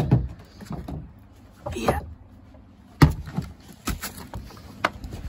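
A few sharp knocks and bumps from someone moving about among stored boxes and junk, with the handheld phone jostled; the loudest knock comes about three seconds in.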